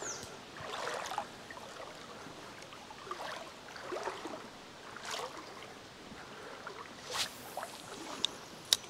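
Faint running water of a shallow stream, with soft irregular swishes every second or two and a sharp click near the end.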